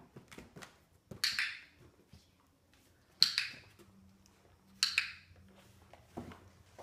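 Dog-training clicker clicked three times, about one and a half to two seconds apart, each a sharp double click as it is pressed and released, marking the puppy's behaviour during training.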